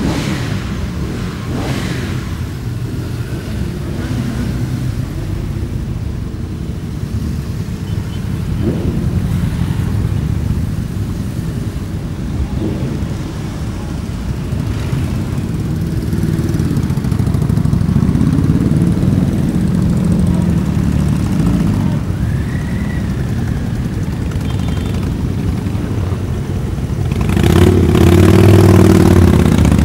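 A procession of motorcycles riding past one after another at a steady pace, their engines running together as a continuous rumble under a concrete overpass. The engine sound swells as bikes pass close, and is loudest near the end as a pair of cruiser-style motorcycles goes by.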